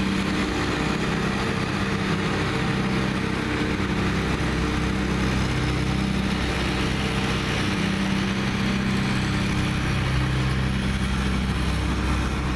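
Trailer-mounted leaf vacuum loader behind a dump truck, running steadily: a constant engine drone over an even hiss.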